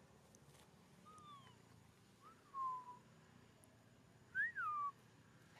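Three thin whistled animal calls, each gliding up and then down in pitch. They come about a second in, then midway, with the loudest near the end.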